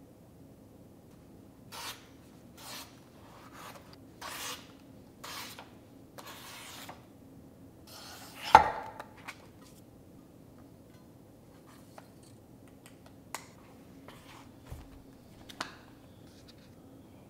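Dalstrong Centurion 8-inch chef's knife slicing through paper: a run of about seven short rasping swishes. Then comes one sharp, loud knock with a brief metallic ring as the blade strikes the board, followed by a few light taps and clicks.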